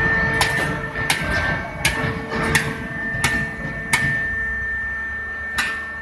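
Baling machinery running: a steady motor hum and whine under sharp metallic clanks that come about every 0.7 seconds, pausing briefly near the end.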